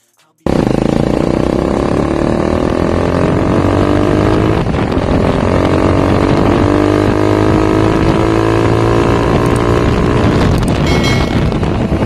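Motorcycle engine heard through an Exos X-6 aftermarket exhaust pipe while riding. It cuts in about half a second in, rises in pitch as the bike accelerates over the next few seconds, then runs at a steady cruise.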